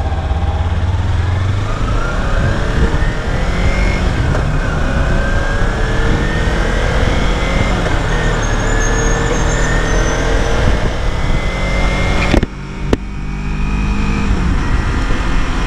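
Kawasaki Ninja 300 parallel-twin engine accelerating away from a stop, its note climbing steadily for about twelve seconds, then dropping off suddenly as the throttle closes, and running on at a steadier, lower pitch.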